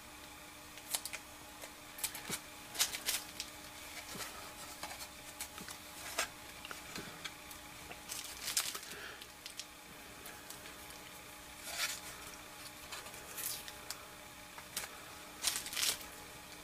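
Masking tape being peeled by hand off a painted plastic model bus body: a string of short, irregular crackling rips every second or two.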